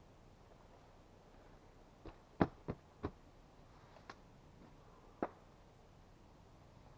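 Six sharp wooden knocks in quick, uneven succession, wood striking wood or an axe hitting a log, the loudest about two and a half seconds in and the last a little after five seconds.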